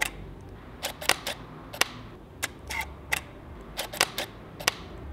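DSLR shutters firing repeatedly in live view: a Canon 5D Mark II and a Nikon D750 in its quiet shutter mode. A series of sharp mechanical clicks, many in close pairs, which is the shutter closing and reopening for each shot.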